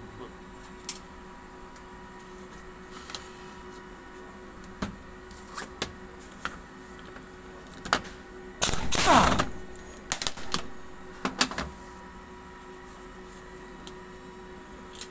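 Pneumatic impact wrench running in one loud burst of about a second, just before nine seconds in, on a bolt of a common rail high-pressure pump housing. Scattered clicks of metal pump parts and tools being handled come before and after it.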